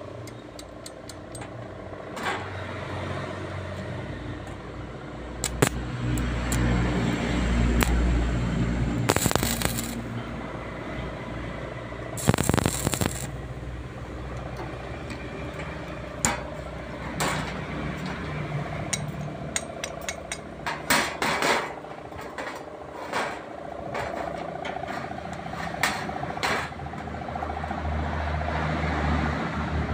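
Stick-welding arc crackling and hissing in short runs as a welding rod fuses the hammer head to its steel pipe handle, with sharp pops between runs. A low rumble sits underneath at times.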